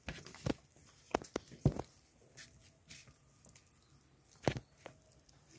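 Scattered light taps and small scrapes of a spoon as it ladles red recado sauce onto masa on a banana leaf, with one somewhat louder tap about four and a half seconds in.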